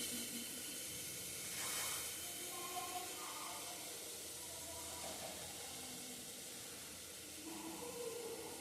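Steady low hiss of food cooking on the stove, with a brief louder rush of hiss about two seconds in.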